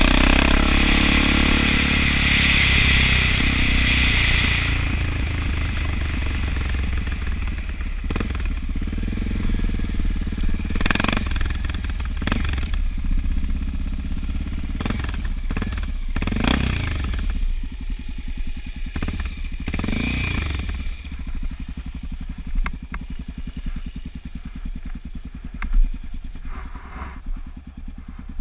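Honda XR650L's air-cooled single-cylinder four-stroke engine running as the bike is ridden, loudest in the first few seconds. A few short throttle blips follow as it slows, and it settles to a steady idle for the last several seconds.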